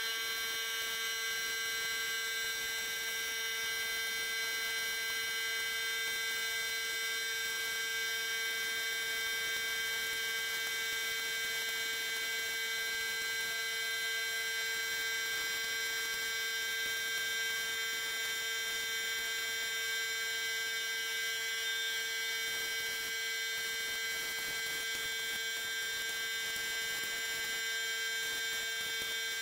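HVLP spray-painting rig running steadily: a motor hum with a high whine of several steady tones over a continuous hiss of air, as the spray gun lays base coat on plastic bumper covers.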